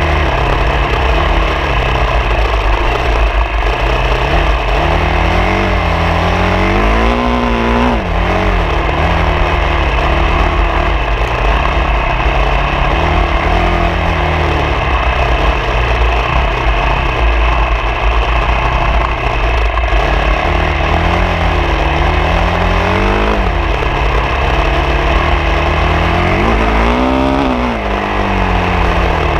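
Off-road motorcycle engine running steadily under way, revving up sharply twice, about a quarter of the way in and again near the end.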